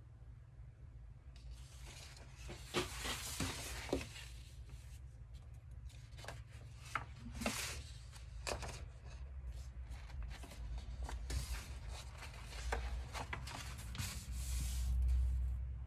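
Large sheets of folded poster paper in a photobook being unfolded and smoothed by hand: irregular rustling and crinkling with a few sharp paper crackles, over a steady low hum.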